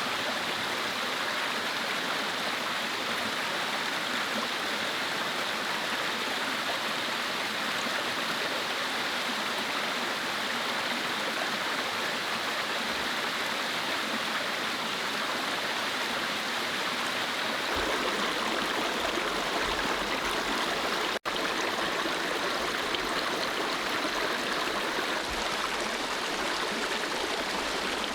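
Mountain stream flowing steadily, an even rushing of water, broken once by a very short dropout about two-thirds of the way through.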